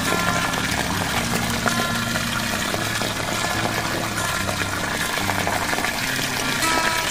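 Water pouring steadily from the open end of a PVC pipe and splashing into a muddy pool, with background music underneath.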